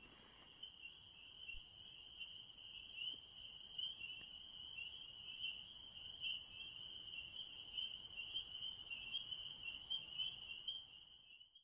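A night-calling animal's steady, high-pitched trill, pulsing slightly, the sound of a night chorus by a pond.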